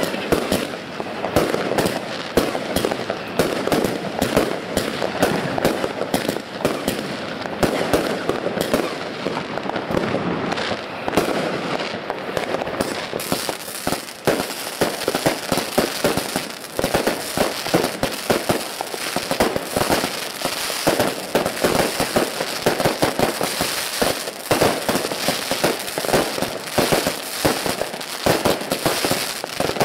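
Dense, unbroken barrage of exploding fireworks: many bangs and crackles overlapping, with no gaps. The high crackling grows stronger about halfway through.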